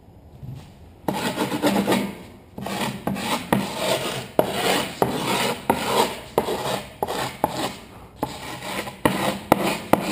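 Metal pipe scraped in repeated strokes along the edge of a skateboard deck over the gritty griptape, starting about a second in, scoring the deck's outline into the grip as a guide for trimming.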